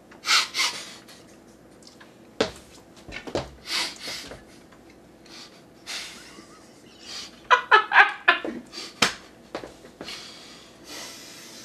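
Two men stifling laughter behind their hands: breathy snorts and wheezes through the nose and mouth, with a short burst of choked, voiced laughter about seven and a half seconds in and a couple of sharp knocks.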